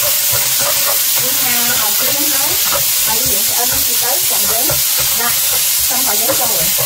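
Sliced pork sizzling in hot oil in a wok while a spatula stirs and scrapes it around: a steady hiss with irregular scraping strokes.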